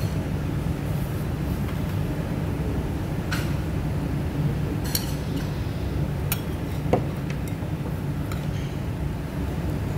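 Metal spoon clinking and scraping against ceramic plates as shredded cabbage is spooned onto a plate of rice: a handful of scattered light clinks, the sharpest about seven seconds in. Under it runs a steady low background hum.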